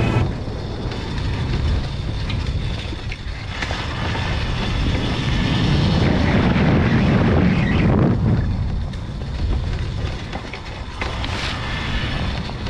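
Wind buffeting the microphone and tyre noise from an electric bike ridden fast on a dirt trail, a loud uneven rush that swells and eases, with a few sharp knocks over bumps.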